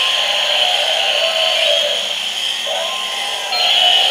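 Several battery-operated toy dinosaurs and animals making electronic sounds at once through small speakers: a thin, buzzy, continuous mix that repeats about every four seconds.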